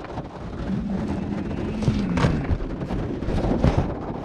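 Backpacking gear being handled and shifted around in a car's back seat: rustling with a few sharp knocks. A steady low tone is held for about a second and a half, then drops away.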